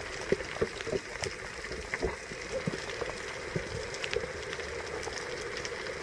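Underwater ambience: a steady crackle of scattered clicks and pops over an even hiss and a faint steady hum.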